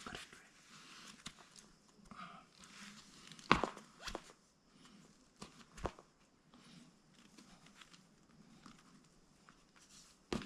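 Quiet handling noise of a lace being worked through a sandal: faint rustling and scraping with a few sharp clicks, the loudest about three and a half seconds in.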